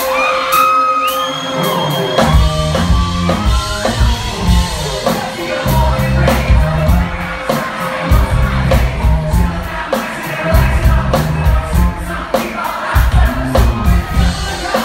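Live pop-rock band playing over a loud hall PA, with singing and whoops and shouts from the crowd. A held keyboard chord opens it, then the drums and bass come in about two seconds in, with steady cymbal hits.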